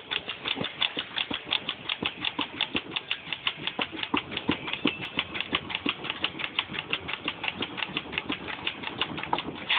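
Rapid, even clicking, about five or six clicks a second, keeping a steady rhythm.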